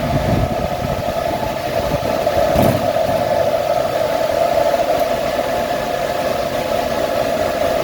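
Cooling fans of rows of Bitcoin ASIC mining machines running inside a mining container: a loud, steady whooshing drone with a strong even hum. A brief knock comes a little under three seconds in.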